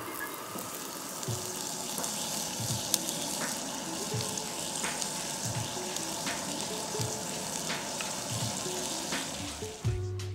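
Asparagus sizzling in hot oil in a cast-iron skillet, a steady frying hiss with a few sharp pops. The sizzle stops abruptly near the end.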